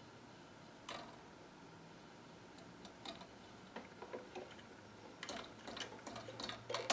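Faint, irregular light clicks and ticks from the clockwork spring-drive mechanism of a Magnemite 610 portable tape recorder, coming thicker and closer together in the last couple of seconds.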